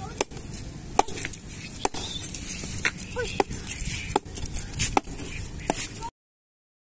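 Sharp snipping clicks, irregular and roughly once a second, as fins are cut off freshly caught fish during cleaning, over a steady low background noise. The sound cuts off about six seconds in.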